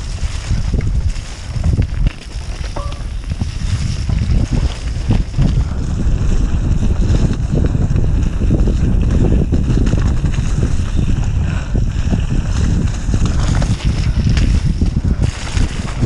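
Wind buffeting an action camera's microphone on a mountain bike ride down a dirt trail, a steady low rumble broken by many short knocks and rattles from the bike and tyres going over rough ground.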